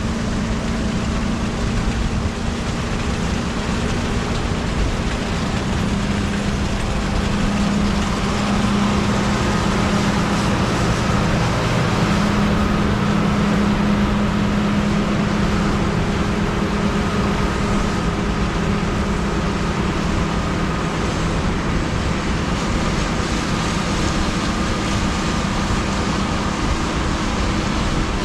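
Large harvest machinery running steadily: a loud, continuous mechanical drone with a low steady hum that grows stronger about a quarter of the way in.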